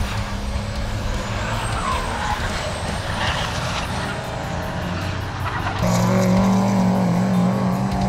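Racing trucks' big diesel engines running hard around the circuit, with a louder, steadier deep engine drone from about six seconds in.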